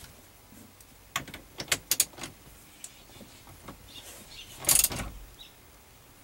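Socket wrench being worked on the steering wheel's centre retaining nut to tighten it: several light metallic clicks about a second in, then a short louder rasping stroke near the end.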